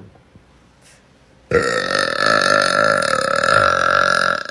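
A woman's deliberate, long and loud burp, starting about a second and a half in and held at a fairly steady pitch for about three seconds before cutting off.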